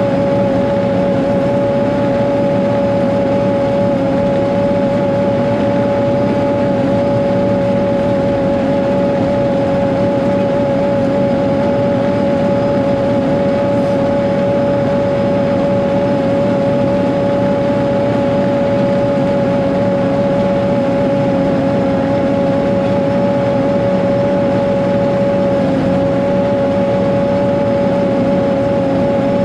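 Caterpillar 140G motor grader's six-cylinder diesel running steadily as the grader works along a dirt road: a loud, even drone with a steady high whine over it.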